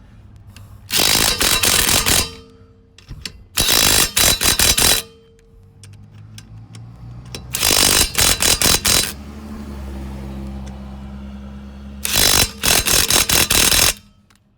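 Impact wrench hammering lug nuts tight on a refitted wheel in a star pattern: four loud bursts of rapid hammering, each about a second and a half long, with a steady low hum between the last two.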